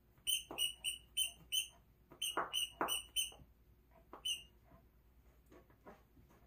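A squeaky dog toy squeaked over and over as a small poodle chews it, about three squeaks a second for three seconds, then one more a little after four seconds. Short scuffling noises from the dog come between the squeaks.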